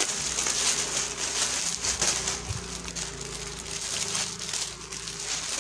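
Plastic packaging crinkling and rustling as a folded dress is pulled out of its plastic bag and opened up.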